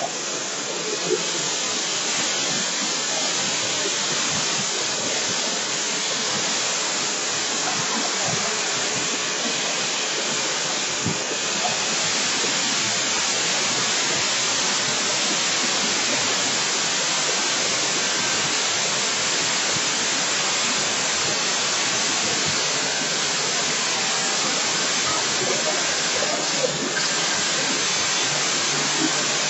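Steady rushing hiss of power tools and dust extraction running without a break in a workshop demonstration.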